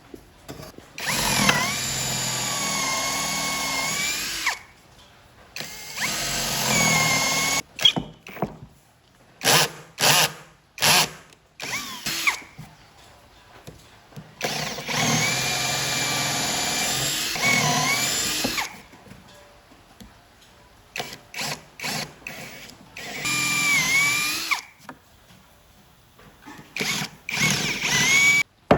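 Electric drill run in repeated bursts, some lasting a few seconds and several only brief blips, with the motor's whine sagging in pitch as each run starts and stops.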